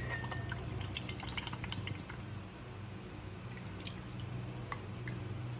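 Evaporated milk poured from a can into a stainless steel bowl. It glugs and plops in many small drips and bubbles, busiest in the first two seconds and again later, over a steady low hum.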